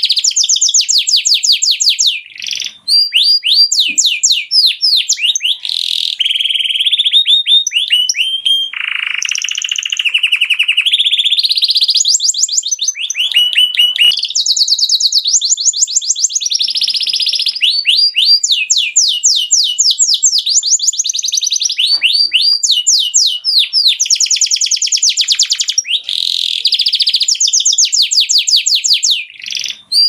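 An excited male domestic canary singing its full song: fast trills and rolls of repeated notes, switching to a new phrase every second or so, with a brief break about three seconds in and another near the end.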